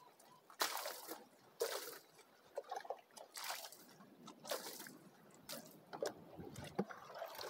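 Water splashing and sloshing as a pickup's wheel is washed by hand, in irregular short bursts.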